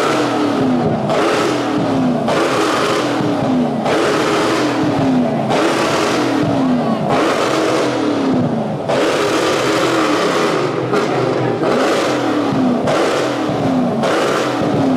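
Car engine revving hard over and over, its note dropping and coming back up about once a second, with a loud rushing noise swelling along with it, as a car doing donuts makes.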